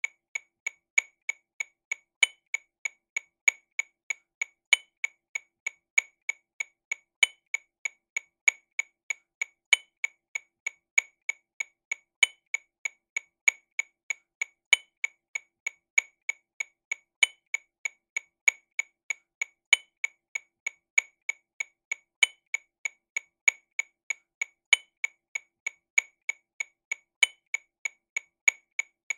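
TAMA RW200 Rhythm Watch metronome clicking sixteenth notes at 48 BPM: an even train of short, sharp clicks about three a second, with a brighter, louder accented click every two and a half seconds.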